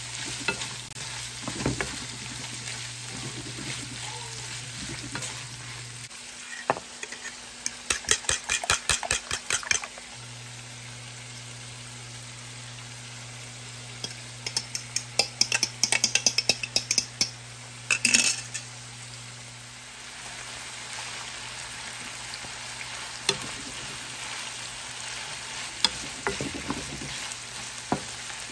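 Diced sausage and onion sizzling in a frying pan, stirred with a wooden spatula that scrapes and taps against the pan in quick clusters of clicks, with a loud knock a little past the middle. A low steady hum runs underneath and drops out twice.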